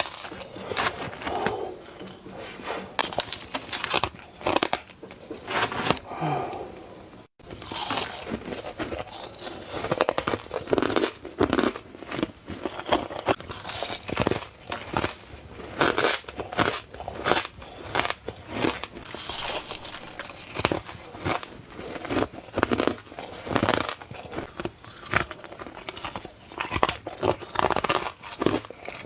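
Close-up bites into soft crunch ice: a continuous run of irregular, sharp crunches, several a second, broken once by a very brief gap about seven seconds in.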